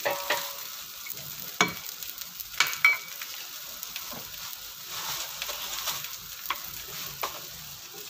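Kaladi cheese and bread slices sizzling as they fry on a flat iron griddle, a steady hiss broken by a few sharp clicks, the loudest about one and a half and three seconds in.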